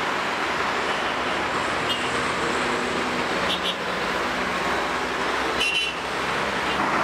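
Steady street traffic ambience, a continuous hum of passing cars with faint voices. Three brief high sounds cut through it, about two seconds in, past three and a half seconds, and strongest near six seconds.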